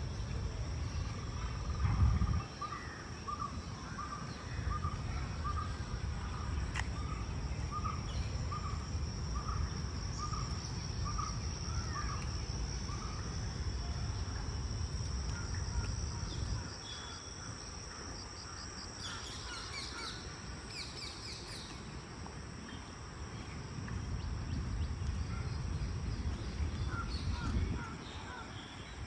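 Park birdsong: a bird repeats a short call about once or twice a second through the first half, and other birds chirp higher up around the middle. A steady high-pitched insect drone runs underneath, over a low rumble that fades about halfway through and comes back near the end.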